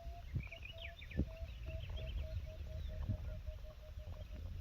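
Birds calling: a steady run of short repeated notes, about three a second and falling slightly in pitch, under scattered higher chirps, over a low rumble.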